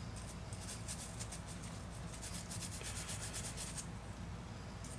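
Bronze cleaning brush scrubbing in rapid strokes over the feed ramp and lug area of a Ruger SR9c pistol barrel, bristles scratching on steel to loosen carbon residue; the scrubbing stops about four seconds in.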